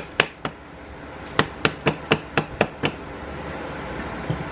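Sharp taps or knocks: two a quarter-second apart at the start, then a quick run of about seven, roughly four a second, through the middle.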